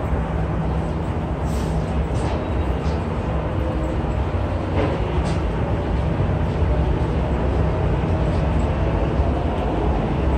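Steady low rumble and hum of a busy underground subway platform, with a few faint clicks and taps scattered through it.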